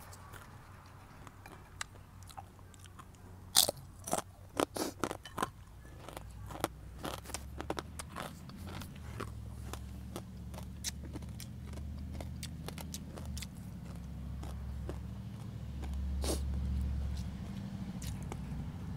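Close chewing and crunching of crispy fried danggit (dried rabbitfish) eaten by hand, with a cluster of sharp crunches a few seconds in and quicker, softer crunches after. A low rumble builds in the background in the second half.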